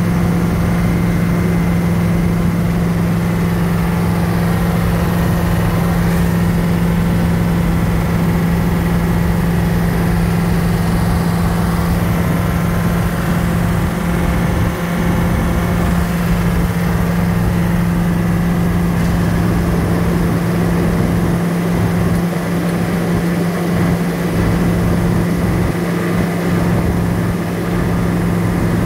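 Cab interior of a military Humvee cruising at highway speed: its diesel V8 engine, drivetrain and tyres make a loud, steady drone with a constant low hum.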